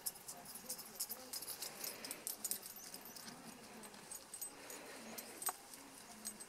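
Two dogs nosing about in grass and leaves under a tree: a light rustling with many quick, thin clicks and jingles, and one sharper click about five and a half seconds in.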